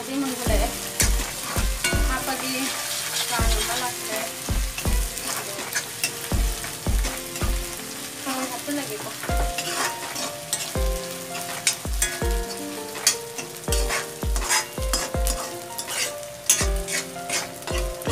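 Onions and chillies sizzling in hot oil in a black iron kadai while a metal spatula stirs them, scraping and knocking against the pan again and again.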